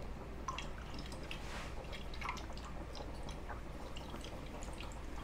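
Blended liquid dripping and trickling from a fine-mesh metal strainer into a plastic bowl as a silicone spatula stirs and presses the pulp through it. Soft and faint, with many small scattered ticks and scrapes.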